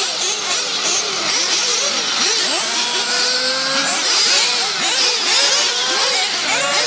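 Many 1/8-scale nitro buggy engines, small two-stroke glow engines, running together and being revved in short blips, their pitches overlapping as they rise and fall.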